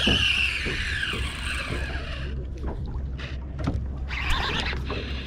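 Boat motor running with a steady low hum, with a high wavering whine over the first two seconds and a few sharp clicks and knocks in the middle.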